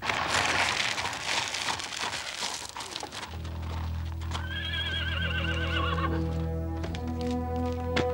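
Horse-drawn carriage clattering along: hooves and wheels on gravel for about three seconds, then music comes in with a sustained low chord. A horse whinnies briefly around the middle.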